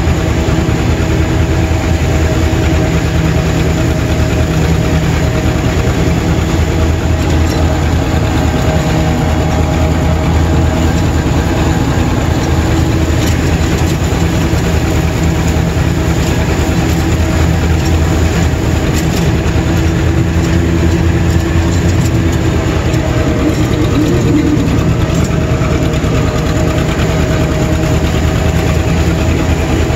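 John Deere 630's two-cylinder engine running steadily under load, heard close to the upright exhaust stack, while the tractor pulls a finish mower.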